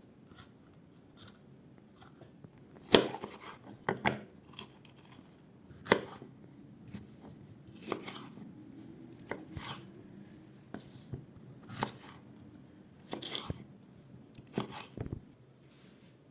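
Knife chopping on a cutting board: a dozen or so irregular sharp strikes, the loudest about three seconds in and again around six seconds.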